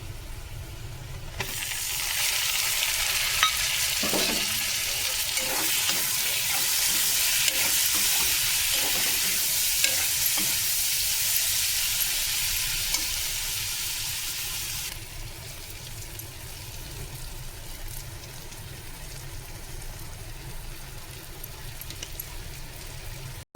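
Food sizzling in hot oil in a cooking pan while a spoon stirs and scrapes it. The sizzle starts abruptly near the start and cuts off about fifteen seconds in, leaving a faint low hum.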